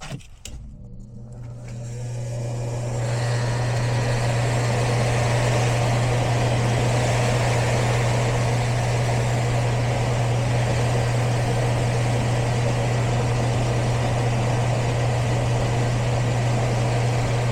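A click, then the furnace's blower motor starting up and ramping over about three seconds to a steady running hum with a rush of air. The unit is running on a heat call from the thermostat, with the short-finding tool in place of the blown low-voltage fuse.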